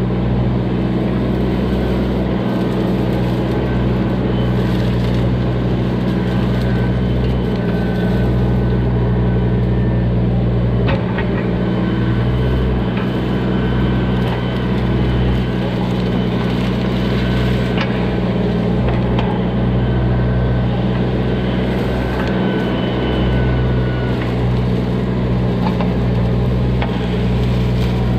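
Bobcat E20 mini excavator's diesel engine running steadily under work, with a thin whine that comes and goes over it and a few brief knocks.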